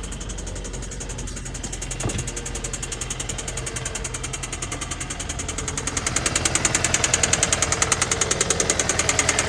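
Hyundai Santa Fe engine idling with a fast, regular knock that gets louder about six seconds in, with one sharp tap about two seconds in. The owner diagnoses the knock as a bad engine bearing, which has set fault code 1326.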